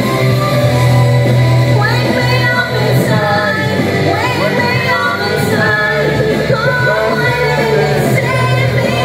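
Karaoke backing music with a woman singing along into a microphone; her voice comes in about two seconds in.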